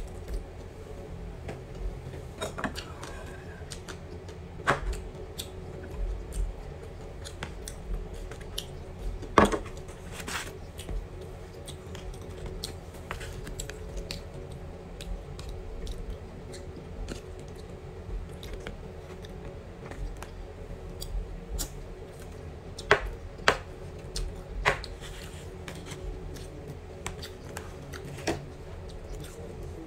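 Eating at a table: a metal spoon clicking and scraping against a plastic takeout box, with chewing, as irregular short clicks over a faint steady hum.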